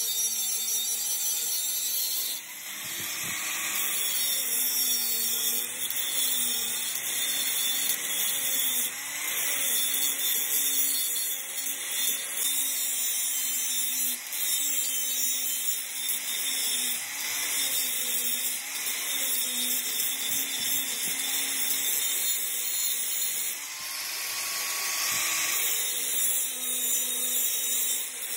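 Angle grinder grinding down weld beads on a steel truck countershaft: the motor's tone wavers up and down as the disc bites the metal, over a steady grinding hiss, easing off briefly about two and a half seconds in and again a few seconds before the end.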